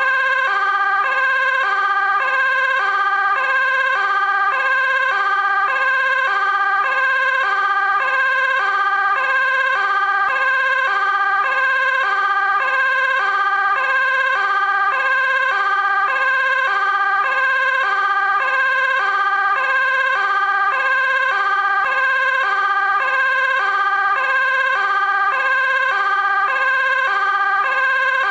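Dutch fire engine two-tone siren sounding steadily, alternating evenly between a high and a low note about once a second.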